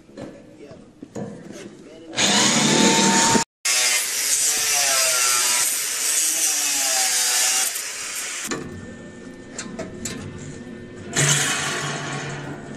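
Power tool working steel, running loud in bursts: it starts about two seconds in, cuts off suddenly for a moment, then runs for several seconds with a wavering whine before easing off, and comes back briefly near the end.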